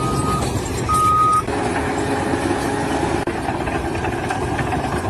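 A reversing alarm beeps twice with long, steady beeps. About a second and a half in, a heavy vehicle's engine takes over, running steadily.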